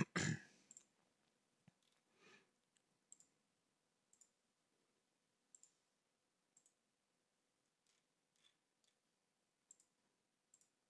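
Faint computer mouse-button clicks, about eight, spaced roughly a second apart, over near silence.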